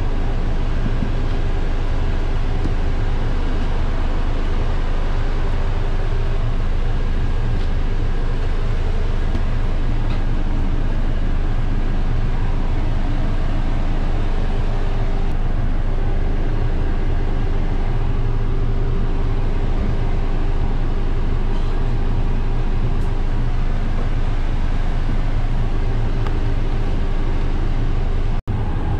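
Bus engine idling, a steady low rumble heard from inside the passenger cabin, with a faint steady whine above it. The sound drops out for an instant near the end.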